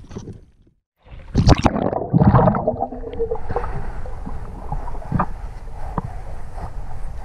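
Water splashing and bubbling as the camera plunges under the surface, about a second in. Then a muffled underwater hush with scattered sharp clicks.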